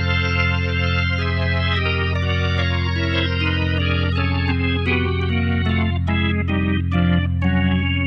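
Hammond XK-5 organ played: a held low chord sounds under a right-hand line of single notes that steps downward, then quickens into shorter notes from about five seconds in, each of the later notes starting with a short click.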